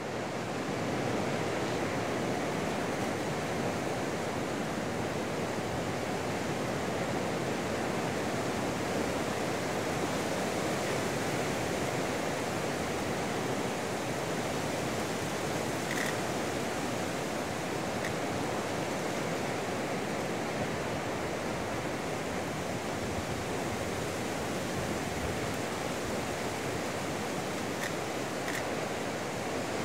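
Rough winter sea breaking on the shore: a steady, even rush of heavy surf.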